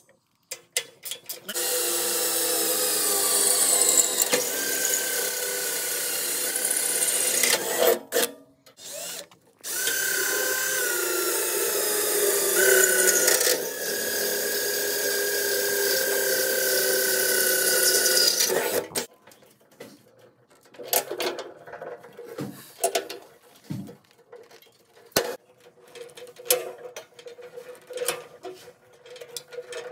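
Power drill running in three long runs, its pitch shifting a little as it works, then scattered clicks and knocks for the last third.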